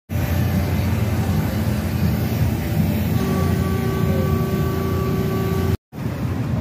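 Carnival spinning ride running: its machinery makes a loud, steady low drone. About halfway in a steady higher tone joins it, and the sound drops out for a moment near the end.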